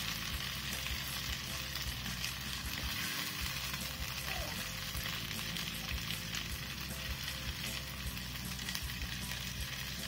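Chicken pieces in a dry pepper masala sizzling steadily in a nonstick pan, with a few light scrapes and taps as a wooden spatula stirs them and lifts some out.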